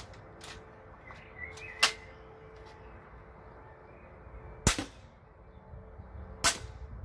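Home-built double-shot Adder repeating crossbow, made of steel: a sharp clack about two seconds in, then two sharp shots of the string, a little under two seconds apart, near the end.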